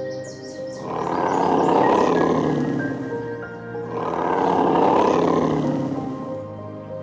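Two long, rough roaring calls from a large animal, each lasting about two seconds, over background music with steady held notes.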